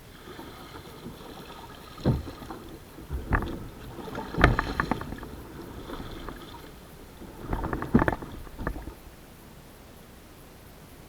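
Kayak paddling: several sharp paddle strokes, splashing and knocking, coming in clusters about 2, 4.5 and 8 seconds in, over a low steady background.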